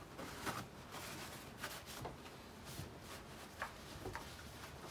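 Faint, scattered clicks and knocks of someone moving about and handling a chainsaw and plastic fuel jug on a wooden workbench.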